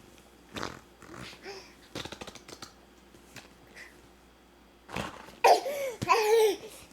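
A baby making two loud, pitched vocal noises near the end, each rising and falling in pitch, after a few softer noises earlier on.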